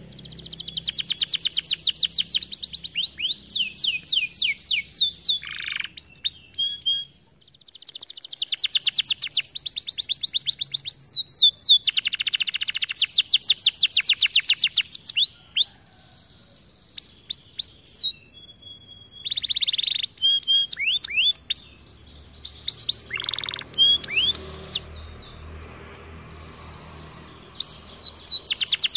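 Domestic canary singing: long phrases of very fast trills and rolled notes, broken by several short pauses.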